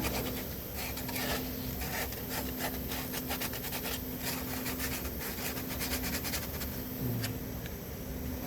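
Hand sanding with sandpaper: rapid, uneven back-and-forth scraping strokes.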